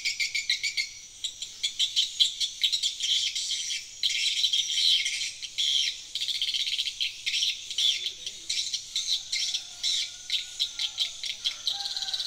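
Insects chirping in a dense chorus of fast, evenly repeating pulses.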